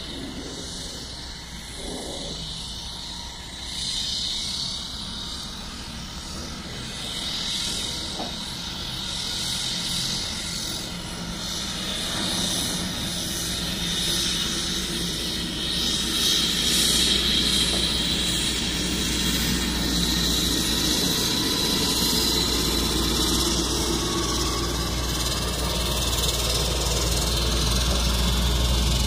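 Cessna 208 Caravan's Pratt & Whitney PT6A turboprop at taxi power: a high whine over a low propeller drone. It grows steadily louder as the aircraft taxis closer.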